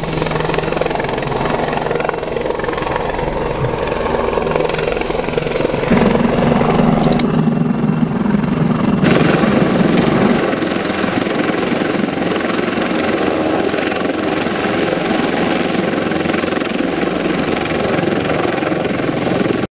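Eurocopter Tiger attack helicopter hovering overhead: loud, steady rotor noise from its twin turboshaft engines and rotors, with a thin high whine above it. The sound shifts abruptly about six and again about nine seconds in.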